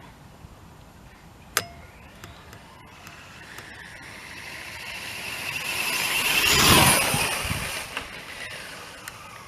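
Electric RC rally car with a brushless motor driving past at speed: the motor whine and tyre noise swell up, peak about seven seconds in, and fade away. A sharp click comes about one and a half seconds in.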